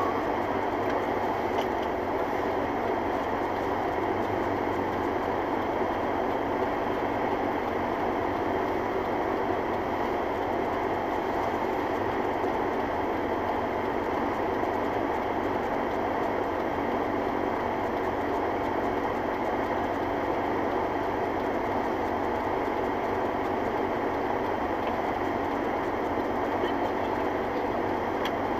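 Steady road and engine noise inside a moving car's cabin, an even rumble with a faint constant hum.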